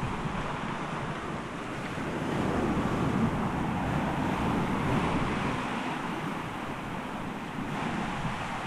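Ocean surf washing in against a lava rock ledge and over a sand beach: a steady rush of breaking waves that swells about two seconds in and eases off again.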